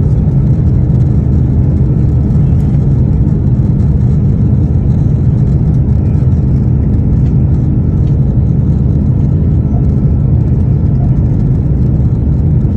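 Airbus A330-900's Rolls-Royce Trent 7000 engines and airframe heard from inside the passenger cabin during the takeoff run: a loud, steady, low rumble that holds level throughout.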